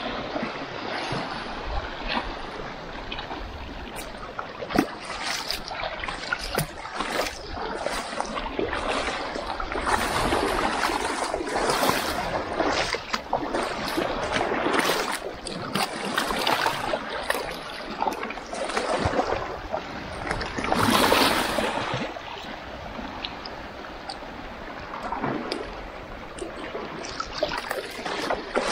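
Shallow seawater splashing and sloshing over rocky limestone as someone wades through it, in uneven surges with a few sharp clicks.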